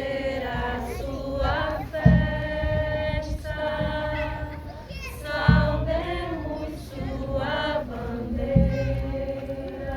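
A group singing a song together, children's voices among them, unaccompanied. Three deep low thumps come through the singing, roughly three seconds apart.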